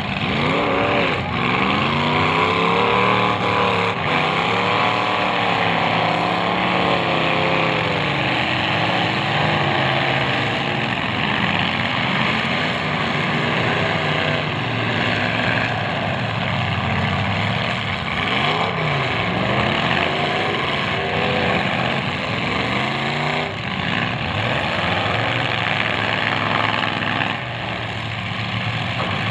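Several demolition derby cars' engines revving hard, their pitch rising and falling again and again, with a few dull knocks of car-to-car hits.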